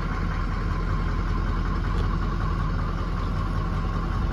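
Ford 6.0 Powerstroke V8 turbo-diesel idling steadily, heard from inside the cab, soon after a cold start while its oil pressure is still building up.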